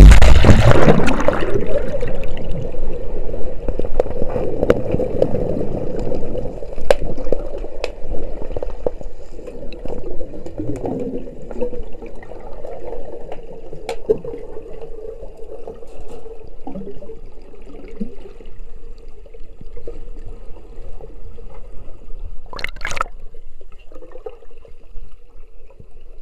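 A loud rush of water as the camera plunges under, fading over the first couple of seconds, then muffled underwater noise of moving water heard through a waterproof camera housing, with a faint steady hum and a few sharp clicks, the loudest near the end.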